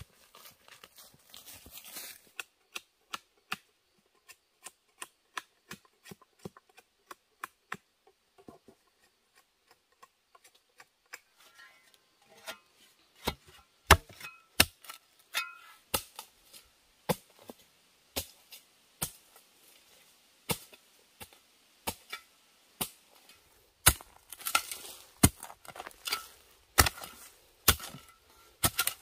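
A steel spade on a bamboo handle chopping and scraping into dry, leaf-covered earth: a long series of sharp separate strikes, about one a second. The strikes get louder from about two-thirds of the way in, with a gritty scrape of soil and a faint metallic ring.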